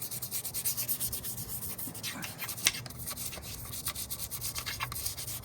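Rapid, irregular back-and-forth rubbing strokes on a hard surface, with a faint steady low hum underneath.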